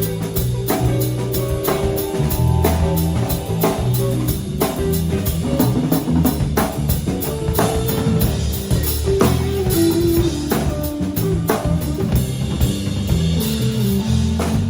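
Instrumental band of guitar, bass and drum kit playing together, with steady drum hits over a low bass line and held guitar notes.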